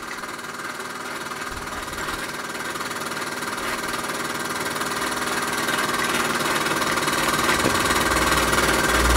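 Bowman E158 model steam engine running steadily under steam, a quiet even purr that grows gradually louder. A low rumble comes in near the end.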